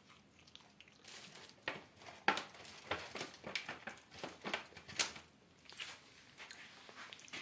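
Plastic bags and packets crinkling and rustling in irregular short crackles as someone rummages through them by hand, looking for cashews.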